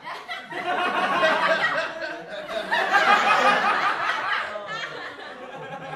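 Audience laughter after a punchline, many voices laughing together, swelling to a peak about three seconds in and dying away near the end; a laugh track, since the show is not actually live.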